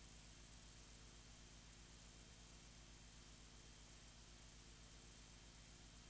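Near silence: a faint, steady hiss and low hum with no other sound.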